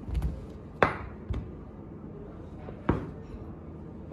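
Large chef's knife cutting down through a block of cheese and knocking on the cutting board: two sharp knocks about two seconds apart, with softer thuds around them.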